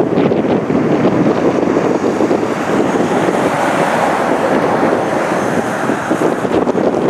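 Strong wind buffeting the microphone: a loud, steady rushing noise that swells slightly around the middle.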